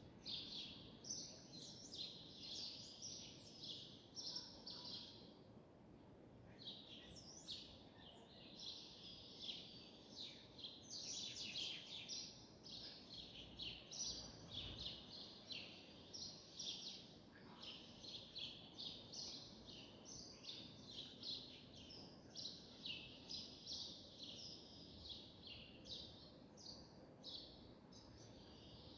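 Faint chirping and twittering of small birds, a steady run of quick, high calls with short gaps.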